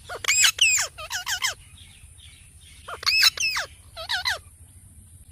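Parrot calling in two bouts of several curving, pitched notes, the bouts about three seconds apart.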